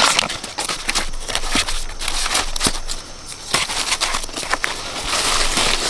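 Dry corn plants rustling and crackling as they are handled, with repeated sharp snaps. The rustling grows denser near the end.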